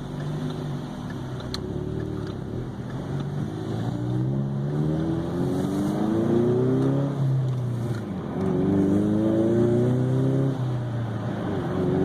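Car engine accelerating through the gears of a manual transmission: the revs climb steadily, drop back at a gear change about eight seconds in, climb again and drop at another shift near the end.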